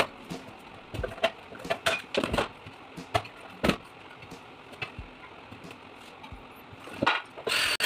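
Scattered sharp clicks and knocks of hand sheet-metal work: a hand rivet gun and steel enclosure parts being handled and set down on a workbench, busiest in the first few seconds. A loud burst of hissing noise comes in near the end and lasts about a second.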